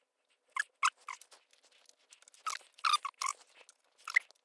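Close handling noise: a series of short crackly rubs and clicks, starting about half a second in, with a denser cluster near the middle and another near the end.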